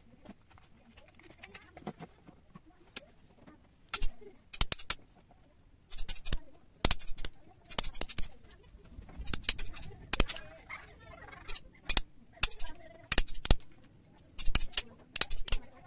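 Claw hammer tapping a small steel chisel into a piece of wood on a wooden stump. The sharp metallic strikes start about four seconds in and come in quick runs of two to four.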